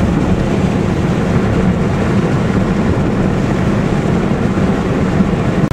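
Steady driving noise from inside a car moving along a wet road.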